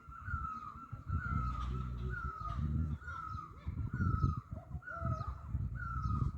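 A bird calling over and over, a short falling note repeated about once a second, over an uneven low rumble.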